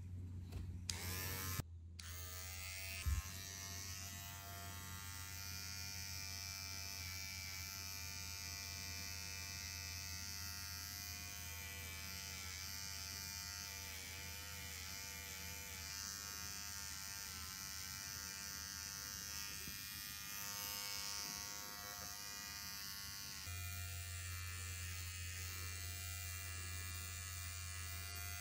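Small cordless electric pet clipper running with a steady buzz while trimming the overgrown fur tufts between a cat's paw pads. A brief knock comes about three seconds in.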